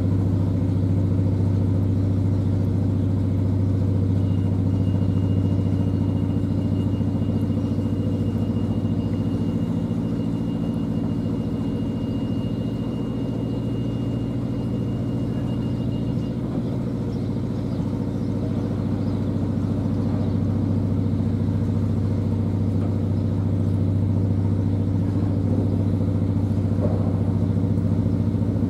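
Narrowboat's inboard diesel engine running steadily at slow cruising speed, a constant low hum.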